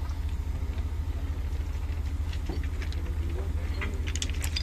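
Steady low rumble of an idling diesel engine, with a few sharp metallic clinks from the excavating chain and tools about four seconds in.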